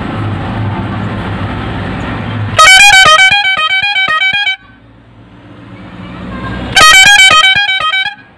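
Three-trumpet electric pressor horn under test: its motor-driven compressor hums, then the trumpets sound a loud, rapid run of alternating notes. After a pause in which the motor spins back up, they play it a second time.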